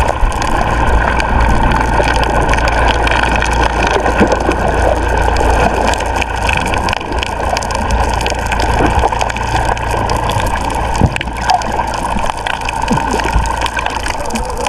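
A small fishing boat's engine running steadily, with water sloshing and splashing around the hull.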